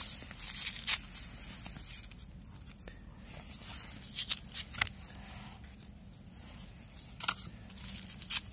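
Firecrackers and their wrapping being handled at close range, heard as irregular crackling, rustling and tearing sounds with a few sharper clicks, while a bundle of firecrackers is put together.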